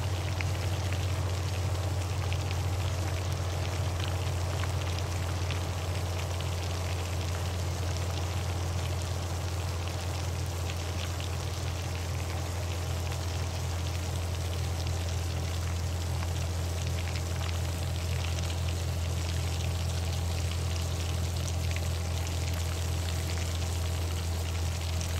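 Muddy, foamy runoff water flowing fast over earth: a steady rushing, splashing noise with a constant low rumble beneath it.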